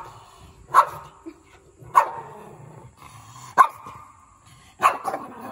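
Small dog barking at its own reflection in a glass pane: single barks about a second or more apart, then a quick run of three near the end.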